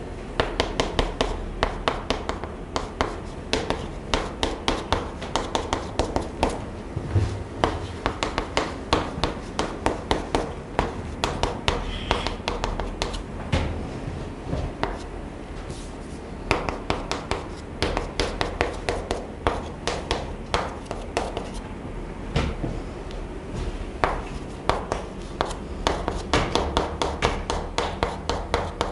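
Chalk writing on a chalkboard: quick runs of sharp taps and short scrapes as each stroke is laid down, broken by brief pauses between words.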